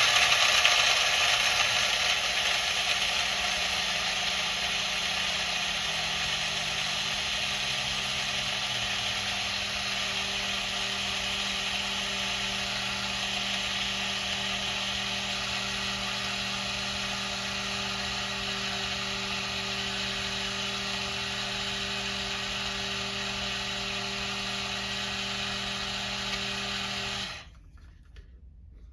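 Capresso electric blade coffee grinder running, grinding a cup of whole coffee beans: loudest at the start as the beans are broken up, then settling into a steadier whir as they turn to grounds, and cutting off about 27 seconds in.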